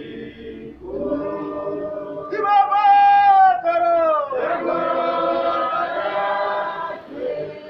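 Church congregation singing a chant together, unaccompanied; a long note held about two and a half seconds in slides downward, and many voices overlap after it.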